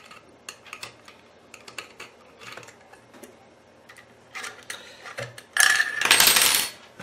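Small metal screws and a thin metal tool clicking and tapping against the plastic base of a CCTV bullet camera as the screws are set in place. Near the end comes a louder scraping rasp of about a second, metal working against the plastic mount.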